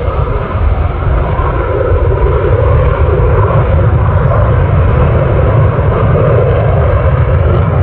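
A fixed-wing aircraft's engine running loud and steady as the plane flies past, growing a little louder about two seconds in.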